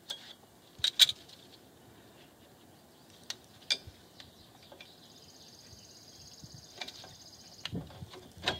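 A few sharp metallic clicks as the lower spring and shoes of a car's rear drum brake are handled and hooked together. The loudest click comes about a second in. A high, steady trill sounds faintly for a few seconds past the middle.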